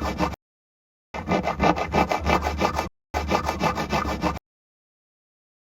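Foley of a hand saw cutting wood in quick back-and-forth strokes, about five a second. It comes in three runs, and the last stops abruptly about four and a half seconds in.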